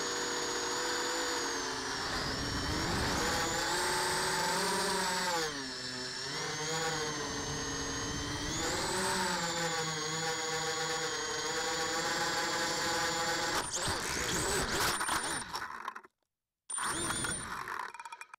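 Small drone's electric motors whining, the pitch rising and falling with the throttle. About fourteen seconds in comes a scratchy clatter as it strikes branches and foliage, and then the sound cuts out.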